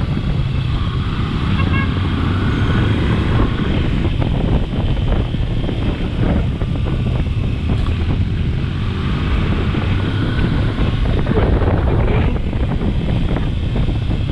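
Adventure motorcycle engine running steadily while riding, with scattered knocks from the rough ground and wind on the microphone.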